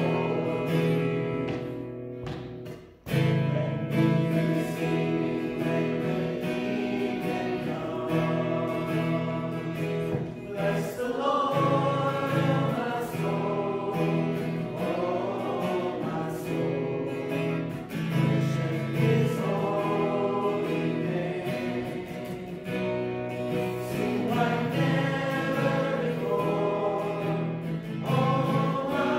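A small church choir and lead singer singing a contemporary worship song with acoustic guitar accompaniment, with a short break between phrases about three seconds in.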